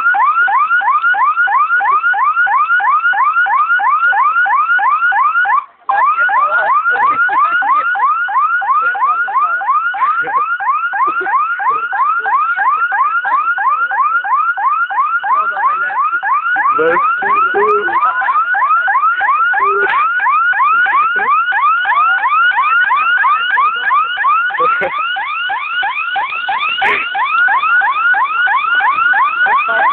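Loud electronic alarm siren yelping without letup, about three quick sweeps a second; it cuts out for an instant about six seconds in.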